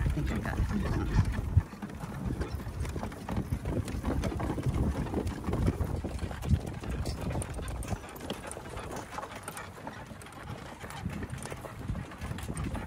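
Horse hooves clip-clopping on dirt and grass as a horse pulls a two-wheeled driving cart along, with the low rumble of the cart rolling.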